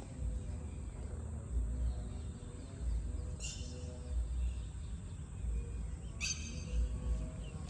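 Outdoor garden ambience: a steady low rumble, likely wind on the microphone, with a short high chirp every two to three seconds.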